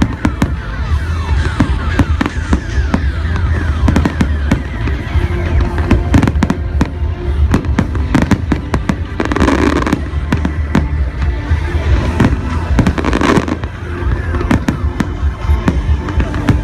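Fireworks display: a dense, continuous series of shell bursts and crackling reports over a steady deep booming, with music playing along.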